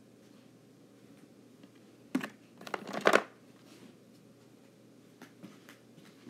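Rustling and clattering of objects being handled, in two loud bursts about two and three seconds in, in an otherwise quiet room.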